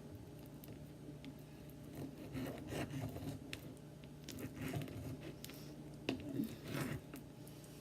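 Kitchen knife sawing through raw chicken breast on a cutting board: a run of uneven scraping strokes starting about two seconds in, the loudest few near the end.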